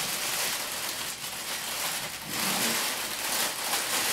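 Continuous crackly rustling of a puppies' nylon play tunnel and the newspapers beneath it as puppies scramble over, chew and shake it.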